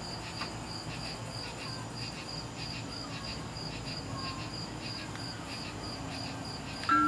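Crickets chirping: a steady high trill in quick, even pulses.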